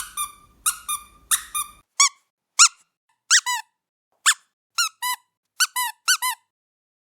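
A squeaky rubber dog toy squeezed again and again: short, high squeaks, mostly in quick pairs. They stop about six seconds in.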